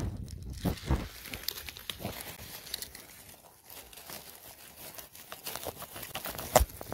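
Crackling and rustling of dry grass stems close to the microphone, with one sharp snap near the end.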